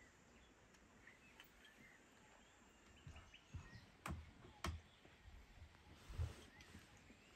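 Near silence: quiet outdoor ambience with faint, scattered bird chirps. Around the middle come a few soft knocks and two sharp clicks, as spoons, small bowls and tea glasses are handled.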